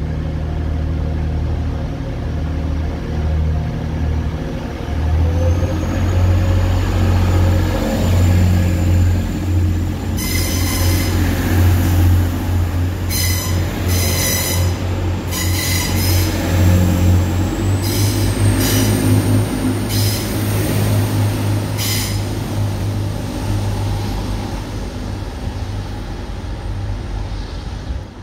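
A diesel multiple unit train runs past the platform with a steady low engine hum and a high whine that rises in pitch. About halfway through come several short, high-pitched wheel squeals.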